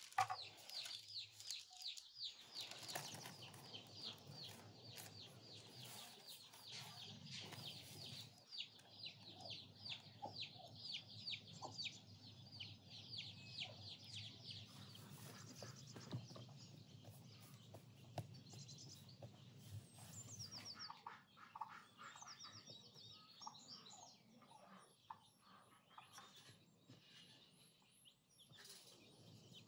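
Faint birds chirping in a quick, steady run for about the first half, then sparser, varied bird calls.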